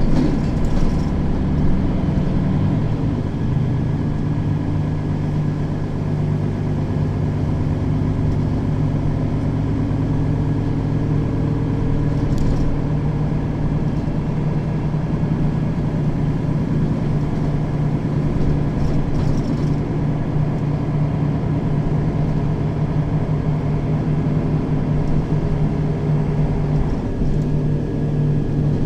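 Mercedes-Benz Citaro facelift city bus engine running steadily at an unchanging pitch, its note shifting briefly near the end.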